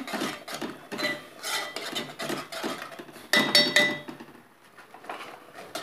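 Metal spoon stirring tomato sauce in a hammered aluminium pot, scraping and knocking against the sides. A loud cluster of ringing metallic clinks comes about three and a half seconds in, and the stirring goes quiet for a moment before a few more knocks near the end.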